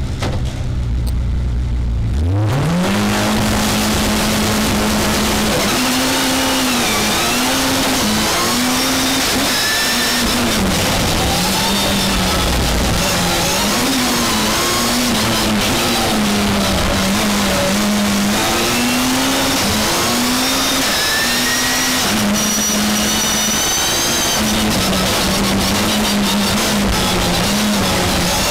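A rallycross race car's engine heard from inside the cockpit. After a low, steady start it launches about two seconds in, then runs hard for the rest of the lap, its note repeatedly rising and falling.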